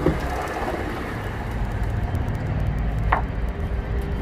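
Steady low rumble of outdoor city background noise, with one short high chirp about three seconds in.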